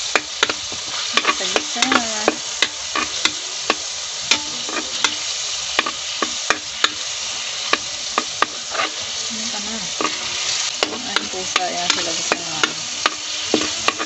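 Garlic frying in hot oil in a pan, a steady sizzle, with a utensil clicking and scraping against the pan many times as it is stirred.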